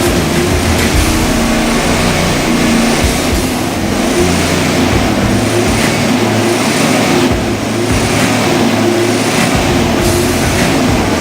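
Rebuilt Chevy 3500 truck's V8 engine running loud and rough, with a broad rushing noise over its shifting drone.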